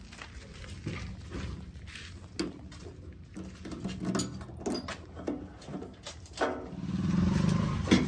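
Scattered metal clicks and knocks as the locking fuel tank cap of a JCB backhoe is unlocked with a key and opened, over a low hum. About six and a half seconds in, a louder steady low machine hum starts up.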